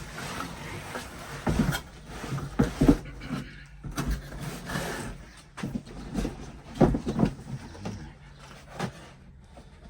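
Cardboard shipping box being opened and its contents handled: scattered knocks, thumps and scraping, loudest about two, three and seven seconds in.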